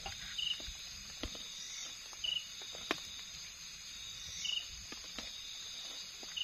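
Night-time insect chorus: crickets keep up a steady high buzzing. A short chirp repeats about every two seconds, with scattered light clicks between.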